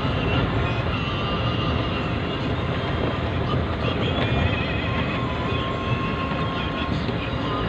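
Engine and road noise inside a moving vehicle's cab, a steady low rumble, with a few brief high-pitched squeals or whines over it.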